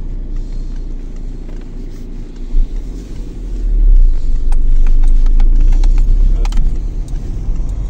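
Peugeot 207 driving, heard from inside the cabin: a steady low rumble of road and engine noise that grows louder about three and a half seconds in. A single thump comes about two and a half seconds in, and a few sharp knocks follow in the louder stretch. These knocks are the 'clong-clong' the owner hears over every bump and hole from the suspension, which he cannot trace; he has ruled out the wishbones and drop links.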